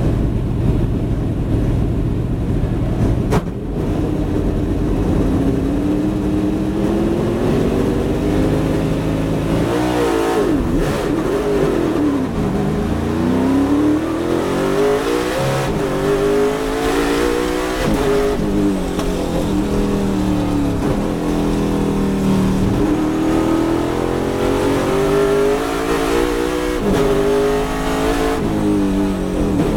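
Ford Mustang race car's V8 heard from the cockpit, held at steady revs from a standstill, then pulling away hard. The engine note climbs through each gear and drops back sharply at several upshifts.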